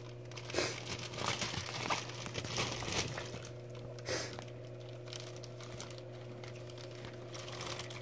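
Handling noise from a handheld phone camera moved against an aquarium: irregular rustling, rubbing and light knocks in the first half, then quieter. A steady low electrical hum runs underneath.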